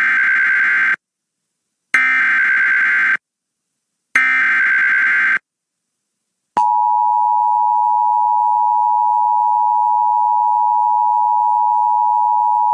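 Emergency Alert System SAME header: three short screeching bursts of digital data tones, a second or so apart, announcing a National Weather Service severe thunderstorm warning. About six and a half seconds in, the EAS two-tone attention signal starts, a steady two-pitch electronic tone.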